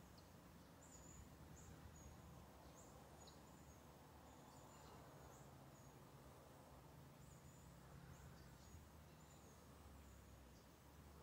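Near silence: faint outdoor ambience with a low hum and short, thin, high-pitched chirps repeating every second or so.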